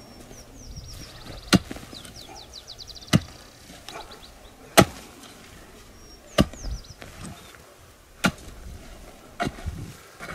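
A pick striking dry, stony soil six times, about once every second and a half, loosening the earth of a planting hole for a maguey. Small birds twitter with quick trills between the strokes.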